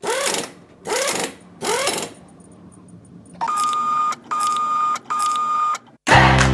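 Printer sound effects: three short mechanical whirring passes about a second apart, a few faint ticks, then three longer printing runs with a steady high whine, as a label is printed. Music starts near the end.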